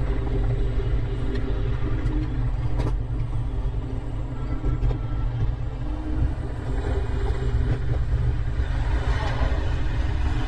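Steady low rumble of wind and road noise while riding a Segway D40X electric kick scooter, with a few faint clicks and a faint steady whine above it.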